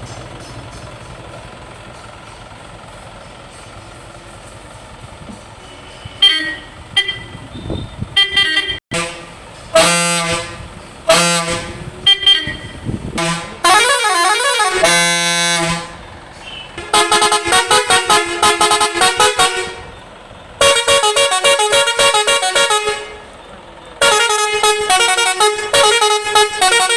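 Multi-tone air horn on a coach-bodied Mazda minibus, sounding after about six seconds of a low steady hum. It gives several short blasts, then a warbling tone that swings up and down, then long runs of rapid pulsing multi-note patterns.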